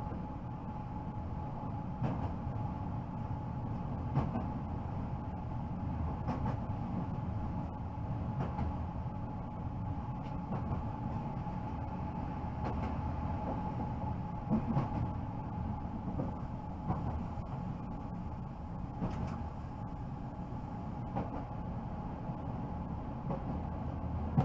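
Newag Impuls electric multiple unit running, heard from inside the driver's cab: a steady low rumble with a thin steady whine, and light knocks about every two seconds.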